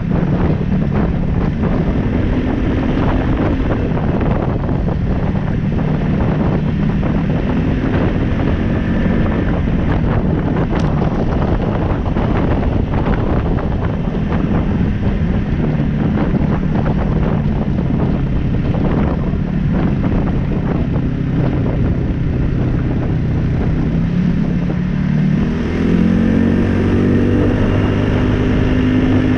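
2015 Polaris Ace 570 SP's single-cylinder engine running under way, its pitch wavering, then rising about 25 seconds in as it speeds up. Tyres crunch over gravel, with wind on the microphone.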